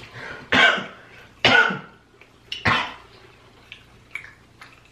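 A person coughing three times, about a second apart, each cough short and loud.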